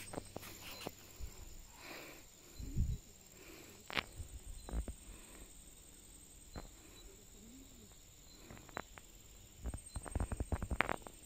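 Scattered footsteps and light knocks, irregular and bunched together near the end, over a faint steady high-pitched insect drone.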